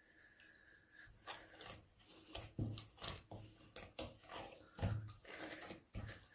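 Hands kneading a stiff flour dough in a plastic bowl, faint and irregular: soft thumps and small clicks starting about a second in.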